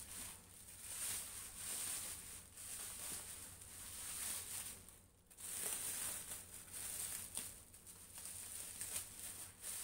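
Bubble wrap crinkling and rustling in irregular bursts as it is pulled and cut away with scissors, with a brief lull about five seconds in.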